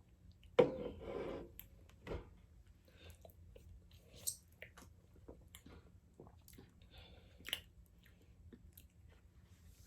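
Mouth sounds of someone tasting a fizzy drink: a louder sip-like noise about half a second in, then scattered small lip smacks and clicks.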